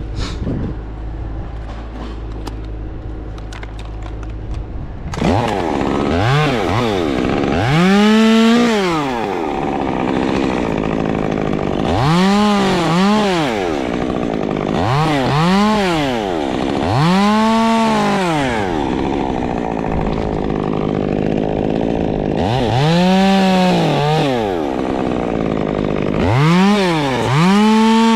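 Top-handle chainsaw, coming in suddenly about five seconds in and then revved up and let back down over and over, about eight times, each rev a rise and fall in pitch lasting a second or two.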